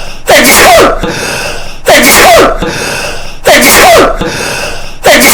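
A man's sneeze looped over and over, four identical sneezes about every 1.6 seconds, boosted so loud it hits full scale, with a quieter noise between them.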